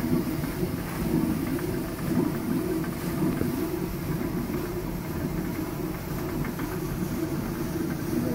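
Water-powered stone flour mill running: the millstone turning and grinding grain fed from a wooden hopper, a steady low rumble that swells about once a second.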